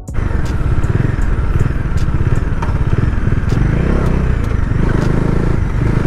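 Bajaj Dominar 400's single-cylinder engine running steadily while the motorcycle is ridden, with a few light clicks over it.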